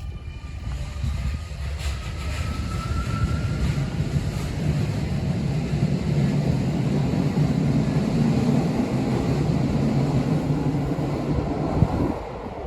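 Keio Line electric train running past. A thin rising motor whine comes early, then a low rumble of the wheels on the rails builds, holds, and cuts off abruptly near the end.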